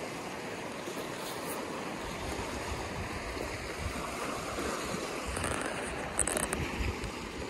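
Small waves washing up on a pebble beach, with wind rumbling on the microphone. A few short clicks come about six seconds in.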